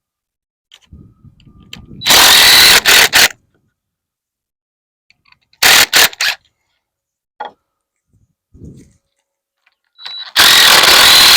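Power drill driving screws into wooden framing in three loud bursts of motor whine: a longer run, a short double burst, then another long run near the end.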